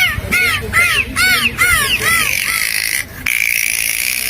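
Dolphin whistling: a rapid series of short whistles, each rising and falling in pitch, several a second. After about two seconds they give way to a longer held whistle, broken briefly about a second later.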